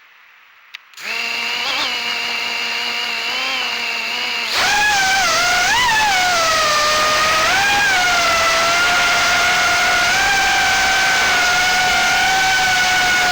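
iFlight iH3 3-inch FPV quadcopter's four brushless motors (GEPRC 1206 4500kv, Gemfan 3028 props, 4S). After a click, the motors start about a second in with a steady idle whine. Just before the middle they throttle up sharply into a louder buzz whose pitch rises and falls with the throttle.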